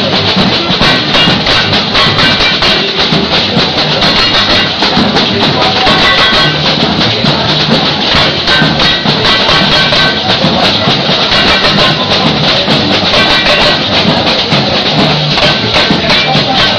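Batucada percussion ensemble playing a fast, dense, unbroken samba rhythm on drums and hand percussion.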